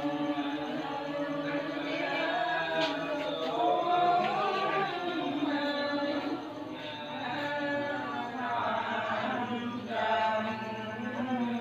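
A group of voices chanting a Cao Đài funeral prayer in unison: long held tones moving slowly up and down in pitch.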